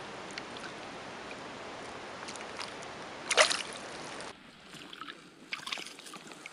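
An Abant trout (Salmo trutta abanticus) in a landing net in shallow water: a steady wash of water sound, then one loud, sharp splash a little over three seconds in as the fish thrashes in the net, followed by quieter small splashes and drips.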